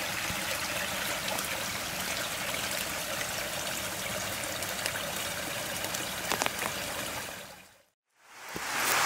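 Small woodland creek trickling over rocks, a steady running-water sound. It fades out near the end, and after a short gap a different, louder rushing noise begins.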